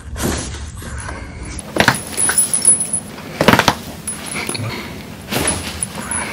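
Neck joints cracking during a cervical spine adjustment: a few sharp pops, the loudest near two seconds and about three and a half seconds in, with another near the end.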